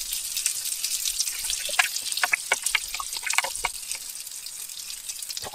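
Fish fingers frying in oil in a pan: a steady high sizzle with irregular crackles and pops, thickest about two to four seconds in.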